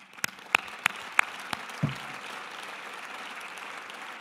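Audience applauding, with several loud, close hand claps from the person at the podium microphone in the first second and a half, about three a second.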